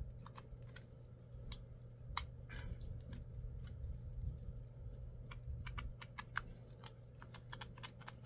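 Irregular small clicks and taps of a Dolly Beauty lipstick case being twisted and handled, its lipstick stuck and not coming out, with a short scrape about two and a half seconds in. A low steady hum runs underneath.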